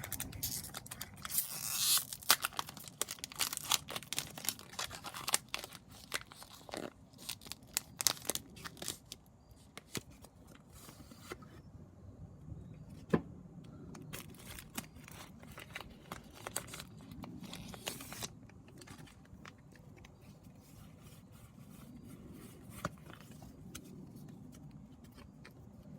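Foil booster-pack wrapper being torn and crinkled open by hand, a pack that is hard to open: dense sharp crackles and tearing for the first ten seconds or so, then quieter rustling and handling with a few isolated clicks.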